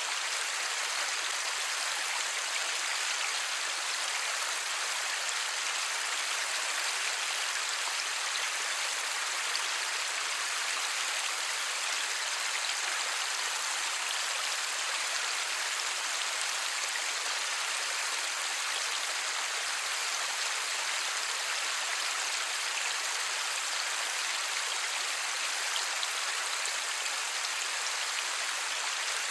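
Light rain falling steadily, an even hiss with no thunder.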